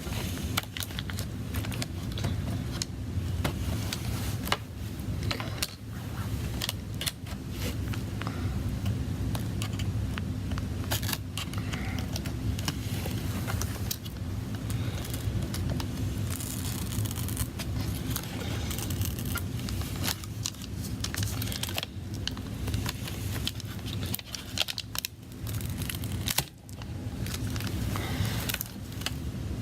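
Irregular clicking, crackling and scraping of a tool prying an iPad's glued-down battery away from its adhesive, over a steady low hum.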